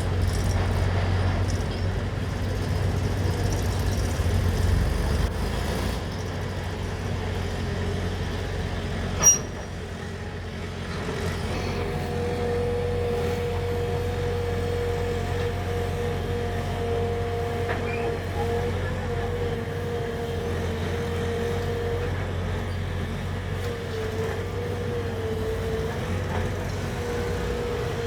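Diesel engine of a JCB 3DX backhoe loader working, with tractors running alongside, a steady low drone throughout. A single sharp knock comes about nine seconds in. From about twelve seconds a steady higher whine joins the drone and wavers in pitch near the end.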